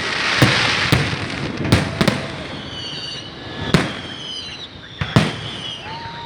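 Fireworks display: a string of sharp bangs from bursting shells, about six in all, with a loud crackling hiss in the first second and thin high whistles in the middle.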